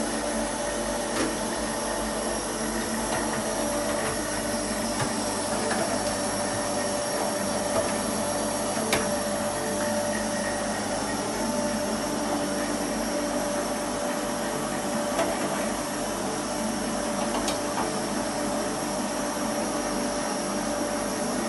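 Steady machine whir with a constant hum, broken by a few faint clicks and taps.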